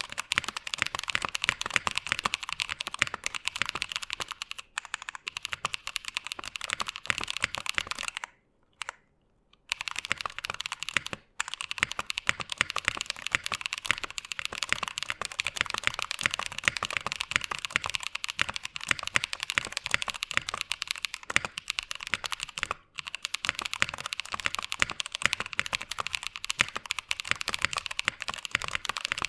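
Fast, continuous typing on a Tofu65 aluminum-case mechanical keyboard with lubed Drop Holy Panda tactile switches, lubed Durock stabilizers and no sound dampening: a dense run of key clacks, with a pause of about a second and a half roughly a third of the way through.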